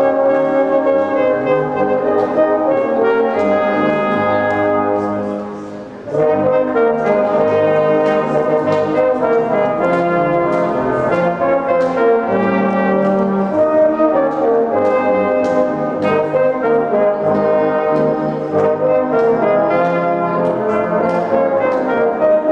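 Brass band playing. About five seconds in, the music falls away briefly between phrases, then the full band comes back in.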